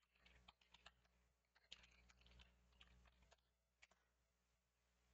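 Faint computer keyboard typing: quick runs of key clicks that stop about three and a half seconds in, with one more click just after.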